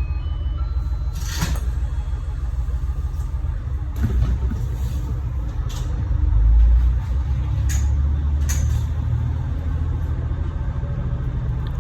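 Diesel railcar engine rumbling steadily, rising to its loudest about six seconds in as the train departs. Several short sharp hisses or clacks come through, the first about a second in.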